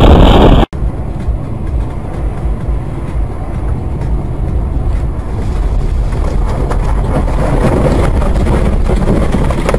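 Loud sound cut off abruptly under a second in, then a car's steady road and engine noise as picked up by a dashcam, growing gradually louder.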